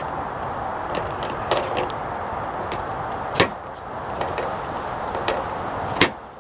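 A knife cutting cauliflower into pieces, giving a few sharp knocks, about four in all, the loudest about three seconds in. They sit over a steady rushing of wind.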